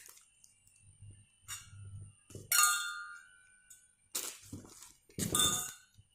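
Stainless steel cups knocking against each other with a metallic clink, about four separate ringing knocks, the loudest about two and a half seconds in.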